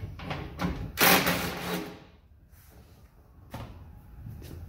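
Ridgid cordless driver running for about a second, loosening the bolt that holds the truck door's window run channel. Near the end there are two short knocks.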